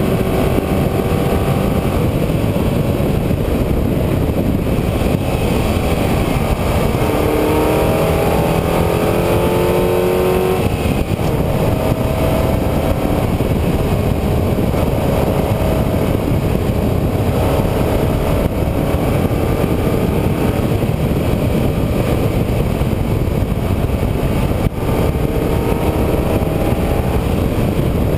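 A road vehicle's engine rising in pitch as it accelerates, several times over, most strongly about seven to ten seconds in, where it breaks off suddenly. Beneath it runs a loud, steady rushing noise.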